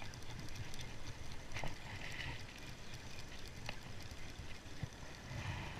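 Spinning reel being cranked to retrieve line, a faint whir with a few small clicks, over a low rumble.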